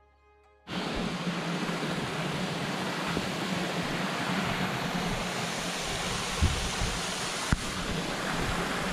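Waterfall rushing close by: a loud, steady rush of falling water that starts abruptly about a second in, with a couple of brief knocks near the end.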